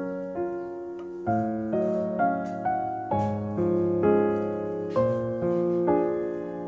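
Background piano music: a gentle tune of struck notes and chords, each note fading after it is played.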